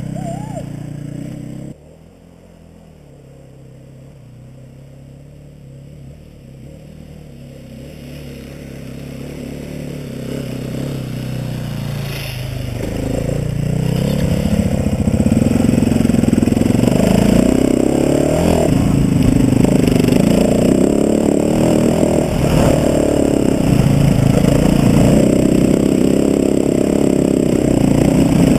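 Dirt-bike engine running, heard from the bike itself: its sound drops abruptly about two seconds in, then builds gradually over the next dozen seconds to a steady, loud run, with clattering from the bike over the rough trail.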